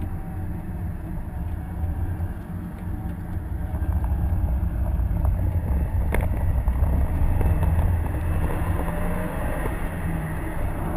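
In-cabin sound of a 2011 Subaru WRX's stock turbocharged EJ255 flat-four under way on a wet track, with tyre and road noise. It grows louder about four seconds in and eases off again after about eight seconds. A single sharp click comes about six seconds in.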